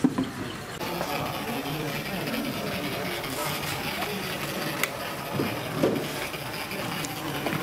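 Background chatter of many voices in a busy exhibition hall, with a sharp click about five seconds in.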